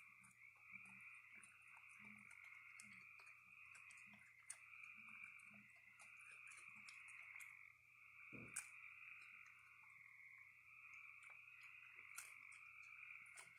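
Faint, steady night chorus of frogs calling in the background. Scattered light clicks and crunches come from raccoons eating cookies and cereal at a feeding table, with one soft thump about eight and a half seconds in.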